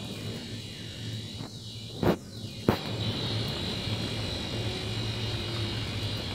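Plastic wheels of a toy shopping cart rolling over a tiled floor, a steady low rumble, with two sharp knocks about two seconds in.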